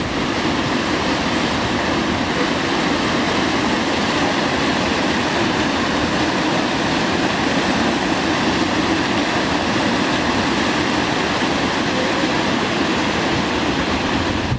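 Steady rushing of a waterfall cascading over rock ledges into a shallow, rocky creek.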